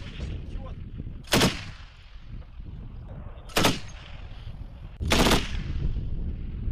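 DShK 12.7 mm heavy machine gun firing three short bursts about two seconds apart, the third a little longer, each shot echoing away.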